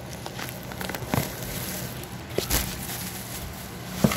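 A few short, sharp knocks and handling noises, the last and loudest near the end, over a faint steady low hum.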